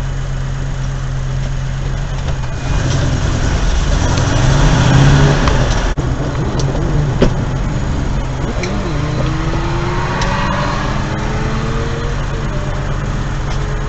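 Dashcam recording of road and engine noise, with a steady low hum. From a little past halfway a faint engine note rises slowly in pitch as a vehicle accelerates.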